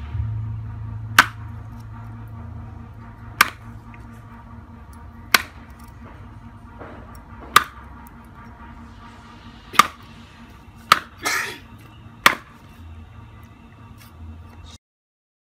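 Cleaver chopping a snake into pieces on a round wooden chopping block: seven sharp chops, roughly two seconds apart.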